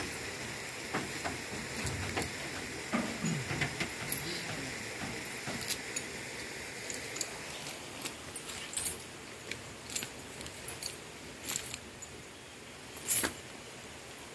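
Heavy steel truck-tyre traction chains clinking and rattling as they are handled and untangled on the ground: scattered sharp metallic clinks, some louder than others.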